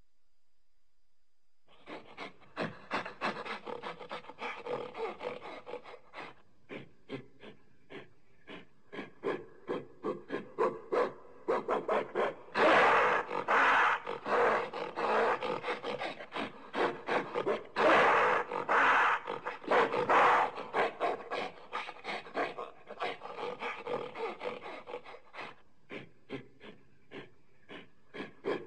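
Primate calls: a rapid run of short grunting, hooting calls that start about two seconds in, with louder, longer screaming calls about halfway through.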